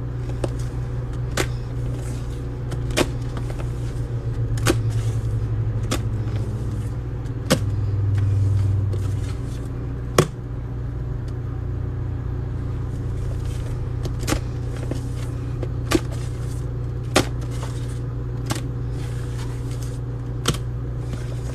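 Thick dish soap and baking soda paste squished and pressed by hand, giving sharp little pops and clicks every second or so, over a steady low hum.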